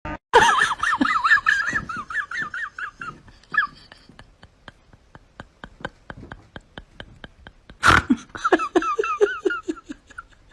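An animal's rapid runs of short, pitched chirps, about six a second, with a stretch of even clicking, about five clicks a second, between the runs and a sharp knock about eight seconds in.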